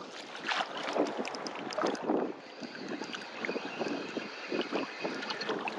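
Wind buffeting the microphone over waves washing on the beach, with irregular clicks and ticks throughout and a faint thin high whine from about halfway on.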